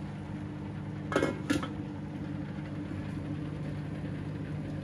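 A steady low machine hum, like a small motor or fan running, with two short louder sounds about a second in.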